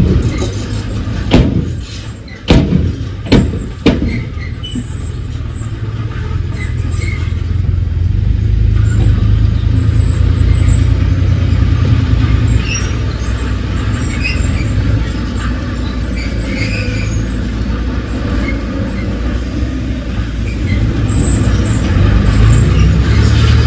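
Heavy diesel earthmoving machinery running steadily with a low rumble, with four sharp metallic-sounding knocks in the first few seconds.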